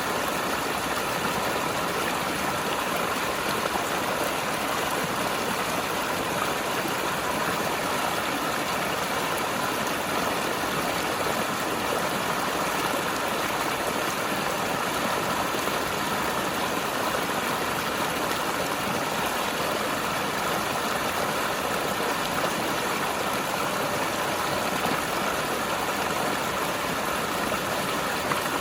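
Mountain river running over rocks: a steady, even rush of flowing water.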